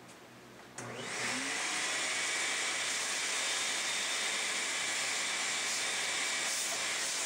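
A CNC router spindle starts up about a second in, its pitch rising briefly as it spins up, then runs steadily at speed with a loud whir and a high whine.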